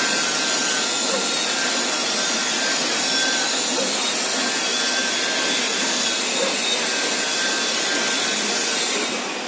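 CNC flatbed fabric cutting machine running, its driven rotary knife cutting single-layer cloth: a steady rushing machine noise with faint high whines, a little quieter near the end.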